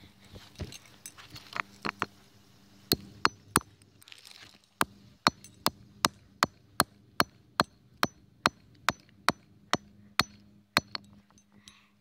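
Repeated hammer blows smashing a plastic fidget spinner on asphalt: a few scattered sharp hits, then a steady run of strikes about two and a half a second that breaks it into pieces.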